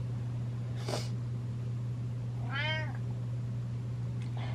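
Orange-and-white domestic cat meowing once, about two and a half seconds in, a single call that rises and falls in pitch: a wake-up meow that the owner puts down to hunger. A brief sharp sound comes about a second in, over a steady low hum.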